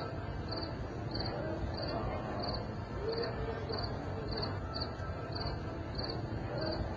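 A high-pitched chirp repeating evenly, about every 0.6 seconds, over a low, steady background murmur.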